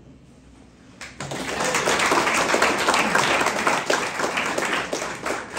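Audience applauding. It starts about a second in and tapers off near the end.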